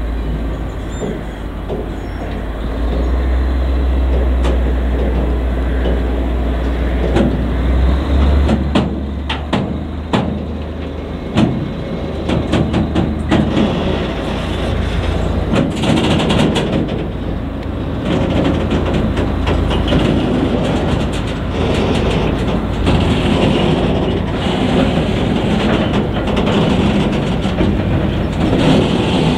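Diesel locomotive engine running with a steady low drone as it hauls a freight train of sliding-wall boxcars. From about eight seconds in, the wagons' wheels rumble past with repeated sharp clicks and clacks over the rail joints.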